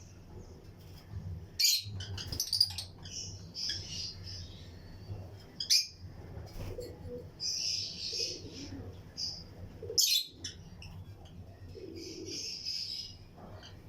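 A colony of lutino lovebirds chirping in short, shrill bursts, with a few sharp clicks among them, the loudest near the start, the middle and about ten seconds in.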